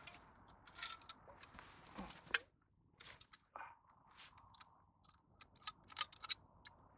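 Rustling and knocks of someone settling into a folding camp chair, with a sharp click a little over two seconds in, then a run of small clicks and scrapes as a small metal flask and cup are handled and opened.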